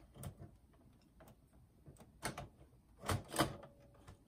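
Plastic clicks and knocks from a Sharp GF-8585 boombox's cassette deck mechanism being worked and pressed back into its chassis: a few single clicks, then a louder cluster of knocks about three seconds in.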